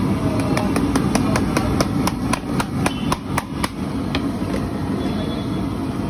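A metal ladle clinking against the side of a large aluminium cooking pot as gravy is stirred, in quick clinks about four a second that stop a little past halfway, over a steady background rumble.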